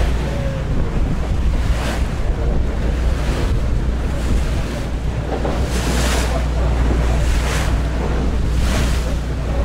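Small motor boat under way through choppy sea: a steady low engine drone, with waves splashing against the hull every second or two and wind buffeting the microphone.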